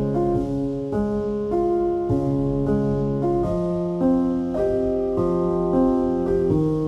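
Background piano music: slow melody notes struck about every half second over held bass notes.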